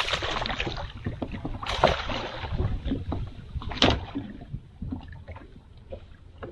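A hooked smallmouth bass thrashing and splashing at the water's surface beside a boat, with a few sharp splashes and knocks about two seconds apart as it is landed by hand.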